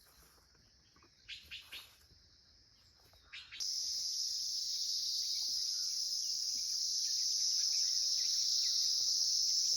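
A few faint bird chirps about a second in. About three and a half seconds in, a steady, high-pitched insect drone starts suddenly and holds unbroken.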